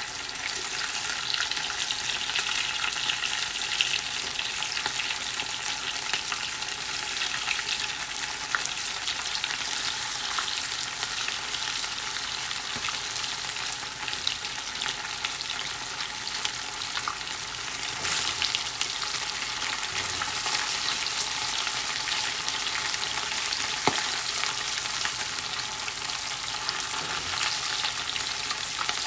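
Battered chicken pieces deep-frying in hot oil on their second fry, the step that makes them crunchy: a steady sizzle with fine crackles and an occasional sharper pop.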